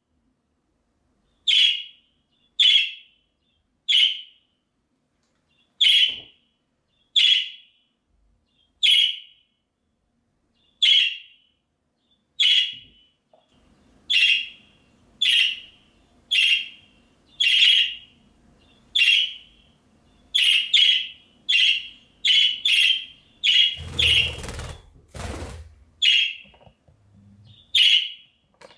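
Budgerigar giving short, sharp contact calls over and over, about one a second at first and coming faster in the last third. A brief rustle sounds about three-quarters of the way through.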